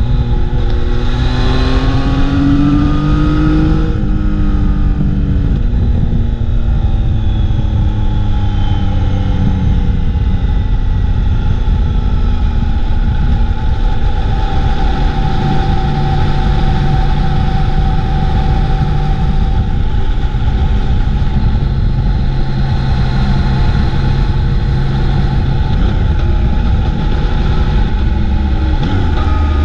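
Motorcycle engine running under way, heard from the bike the camera rides on, with heavy wind rush on the microphone. The engine pitch climbs over the first few seconds, drops about four seconds in, then holds fairly steady.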